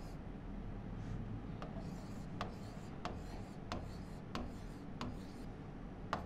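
A stylus tapping and sliding on the glass of an interactive whiteboard as a row of digits is written out, with a light click at the start of each stroke, about seven in all.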